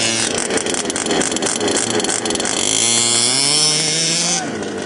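Small two-stroke engines of gas-powered large-scale RC cars running, the note climbing in a rev from about two and a half seconds in, then the high hiss dropping off suddenly near the end.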